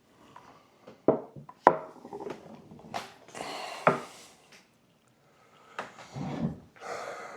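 Breakfast things handled on a wooden table: several sharp knocks and clatters of dishes and cutlery, with short stretches of rustling between them.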